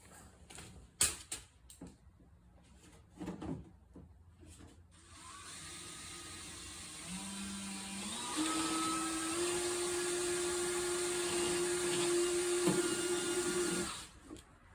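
A few handling clicks and knocks, then an electric drill starts up, rising in pitch in steps as it comes up to speed. It runs steadily for about six seconds while drilling a hole through the diesel heater's fuel tank for the fuel line, then stops abruptly near the end.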